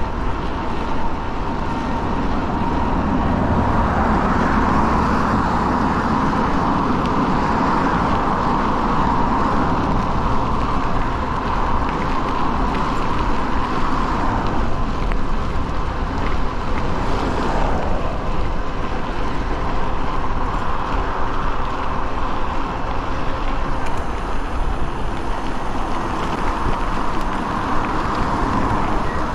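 Steady wind rush on the microphone and tyre noise on wet pavement from an e-bike riding fast in pedal assist 5, with a steady hum running under it.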